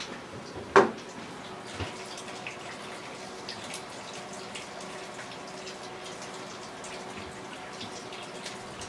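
Water dripping from leaking house plumbing, small scattered drips over a faint steady background. A sharp knock about a second in, the loudest sound, and a lighter one a second later.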